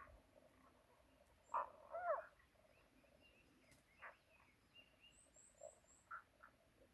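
Calls of an unidentified wild animal, the mystery call: a loud pair of short calls with bending, warbling pitch about a second and a half in, then several shorter single calls spaced a second or so apart.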